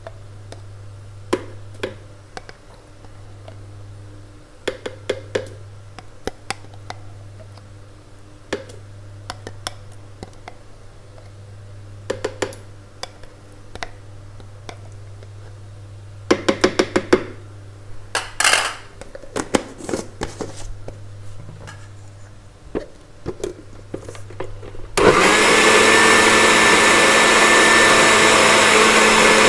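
A spoon scrapes and clicks against a jar as thick tempoyak is dug out and tipped into a blender jug, in scattered clicks and short clusters. About 25 seconds in, an electric countertop blender switches on abruptly and runs steadily at speed, much louder than the spooning, blending the chilli and tempoyak paste.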